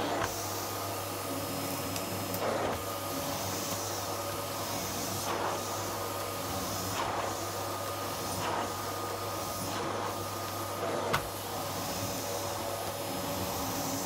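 Philips 3000 Series bagged canister vacuum cleaner running on its highest power setting with a steady motor hum and whine. Its floor nozzle swishes over a thick rug with each push-pull stroke, and there is one sharp knock about eleven seconds in.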